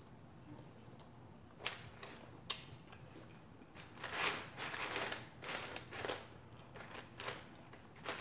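Close-miked eating sounds: a couple of sharp mouth clicks while chewing corn on the cob, then, about four seconds in, several seconds of crinkling and crackling as fries are picked out of the paper-lined basket.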